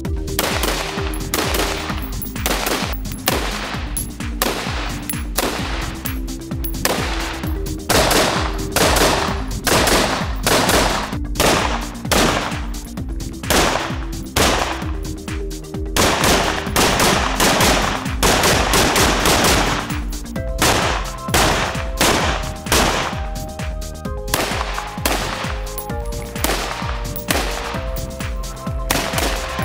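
Schmeisser AR-15 rifle firing rapid strings of shots, several a second, over background music with held notes.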